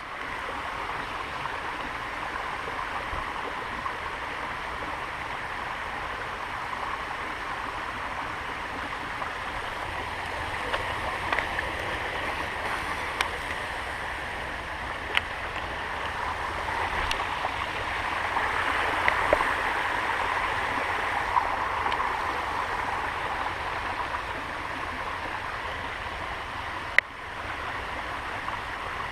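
Creek water running steadily, growing a little louder a bit past the middle, with a few brief sharp clicks.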